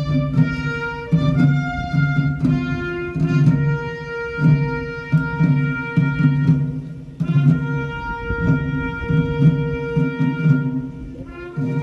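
Music with an orchestral sound: long held notes over a steadily pulsing bass line. It dies down about ten seconds in, and a new held tone starts just before the end.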